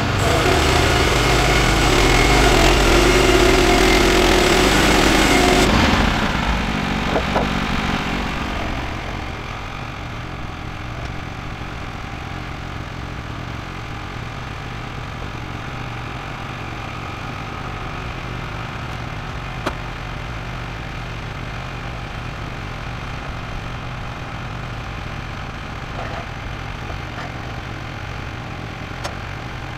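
Woodland Mills HM126 bandsaw mill finishing a cut through Douglas fir with its engine under load; about six seconds in the cut ends and the engine settles to a steady idle. A few sharp knocks come from the cut boards being handled on the mill bed.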